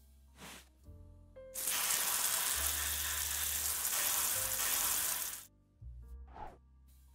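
Dental water-spray nozzle hissing steadily as it rinses foam off the teeth. It starts about a second and a half in and cuts off suddenly about four seconds later, over soft background music.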